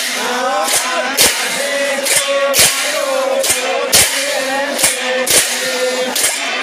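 Many pairs of large brass hand cymbals being clashed together in a rhythm, with sharp crashes about every half second to a second over a continuous ringing. Voices sing or chant along with the cymbals.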